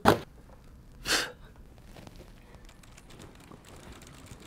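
A thump as a stack of binders and papers is dropped onto a leather office chair, followed about a second later by a short, breathy rush of noise.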